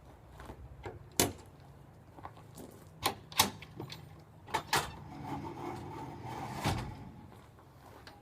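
Board-and-batten bifold garage door being worked: several sharp clicks and knocks of the latch and panels, then a longer rubbing sound as it moves, ending in a knock.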